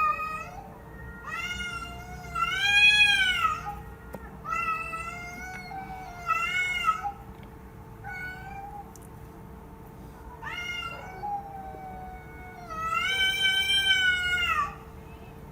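Domestic cats meowing, about seven separate meows of varying length, each rising and falling in pitch. The longest and loudest comes near the end. A faint steady tone runs underneath.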